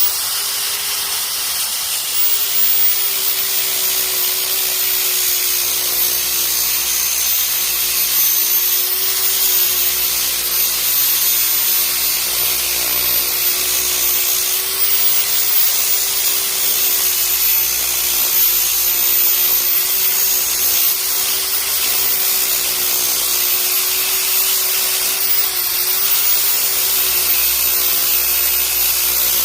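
Handheld electric power sander running steadily, taking down the surface of a wooden planchette cut from a tree branch. The motor holds one even pitch with a high whine above it, with no pauses.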